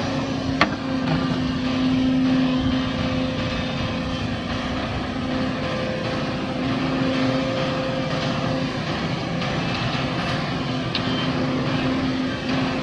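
Heavy diesel earthmoving machinery running steadily, a continuous engine drone with a held low hum. A single sharp click or knock sounds about half a second in.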